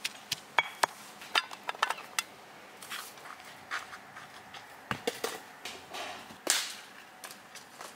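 Quick, sharp knocks of a stone pounder crushing peeled garlic on a stone grinding slab for about two seconds. Then scattered knocks, a dull thud and a short scrape as hollow concrete blocks are set down on bare earth.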